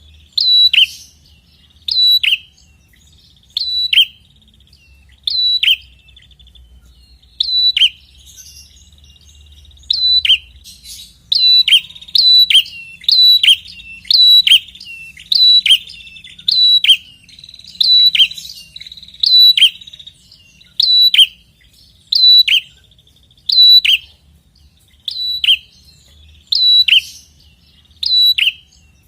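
Red-headed prenjak (prenjak kepala merah) calling: a loud, sharp, high note that drops in pitch. It repeats about every second and a half at first, then about once a second from around ten seconds in, with a buzzy trill between some calls. This is a lure recording meant to set caged prenjak calling back.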